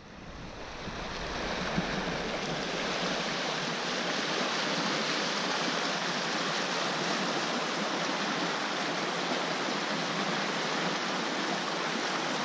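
Fast-flowing creek, swollen with snowmelt and rain, rushing steadily. The rush rises over the first couple of seconds, then holds even.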